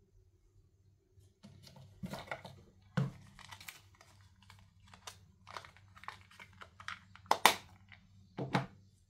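Small toy pieces handled close to the microphone: a small plastic box and a printed card being picked up and moved, giving rustling and crinkling with sharp plastic clicks and taps. It starts after about a second and a half, and the loudest click comes near the end.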